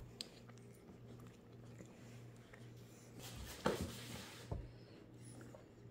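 Faint handling noise in a quiet room: a brief rustle with a couple of soft knocks about three and a half seconds in, over a low steady hum.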